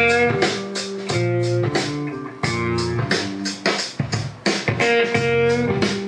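Guitar-led music with a steady drumbeat, playing from a CD through a Sansui R-70 stereo receiver and its loudspeakers.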